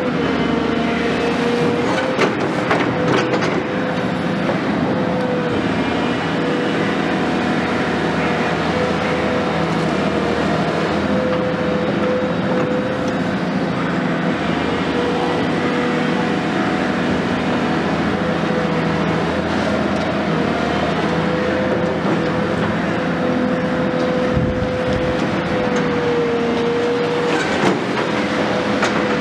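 Volvo EC 360 long-front demolition excavator's diesel engine and hydraulics running steadily under load, with a steady whine held throughout, as the long boom works its crusher attachment. A few knocks come about two to three seconds in and again near the end.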